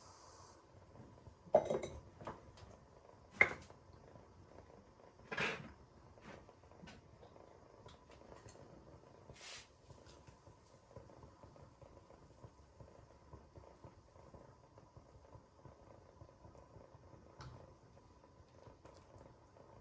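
Kitchenware knocked and set down: a few sharp clinks and knocks in the first ten seconds, the loudest about two, three and a half, and five and a half seconds in, then only a faint steady hum.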